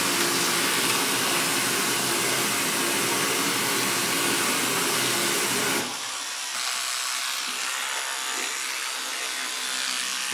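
Electric toothbrush buzzing during teeth brushing, a steady hum with a hiss; about six seconds in it drops to a quieter buzz.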